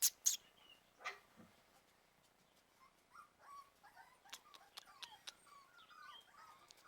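Puppies whimpering in short, faint, high little whines that come thick and fast from about halfway through. A few sharp clicks or knocks come in the first second.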